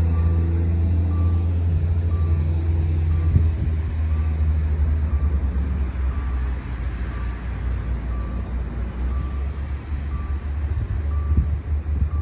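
Low steady vehicle rumble with a short high beep repeating about once a second.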